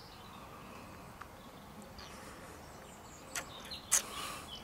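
Faint outdoor background while a person tastes a sip of red wine; near the end come two short smacking clicks of the lips and a brief breath out.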